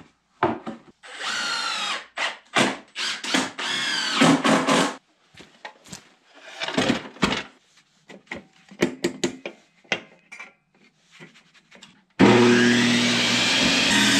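Power drill driving screws into rough-cut boards in several bursts, its pitch changing as it works, with short handling noises between. About twelve seconds in, a small benchtop table saw starts suddenly and runs steadily.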